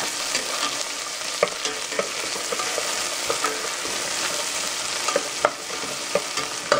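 Chopped onion frying in hot ghee and oil in a stainless steel pot, with a steady sizzle, stirred with a wooden spatula that clicks and scrapes against the pot now and then.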